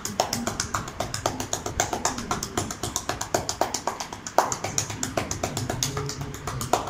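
Hacking massage: the edges of both hands alternately chopping on a bare back, a fast even run of slapping strikes about eight a second, with one louder hit a little past the middle.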